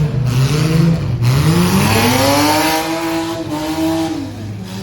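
Demolition derby car's engine revving: it climbs about a second in, holds at high revs for about two seconds, then drops back near the end.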